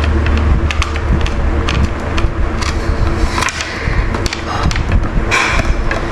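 A puppy chewing on a hard horn chew: irregular sharp clicks and crunches of teeth gnawing the horn, with the horn scraping and knocking on the tiled floor.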